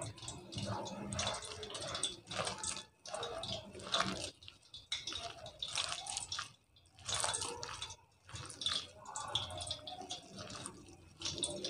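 A hand mixing a wet gram-flour batter of shredded potato and onion in a glass bowl: quiet, irregular squelching and squishing that starts and stops, with brief pauses.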